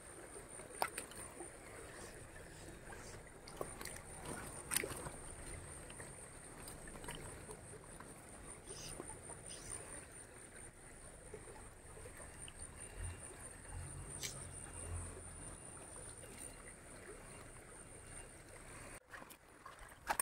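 Shallow stream water running over stones, with a steady faint high-pitched whine and a few small clicks.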